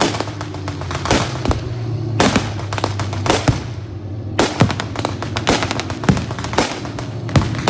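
Rapid, irregular bangs and pops of fireworks, staged as anti-aircraft fire, coming in clusters with a brief lull about four seconds in. Music plays steadily underneath.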